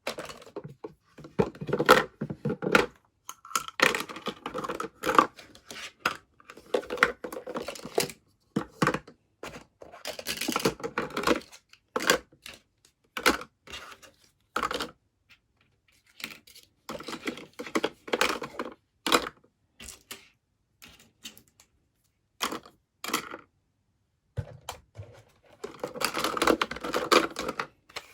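Small plastic toy kitchen pieces and their packaging being handled during an unboxing: a run of sharp clicks and taps, with a few longer bursts of rustling or tearing packaging.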